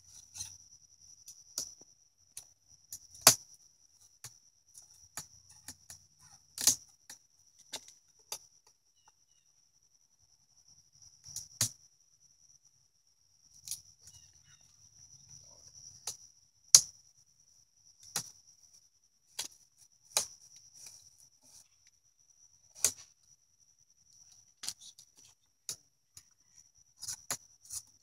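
Wooden beehive parts being handled during an inspection: sharp clicks and knocks at irregular intervals of a second or two, over a steady high-pitched trill of crickets.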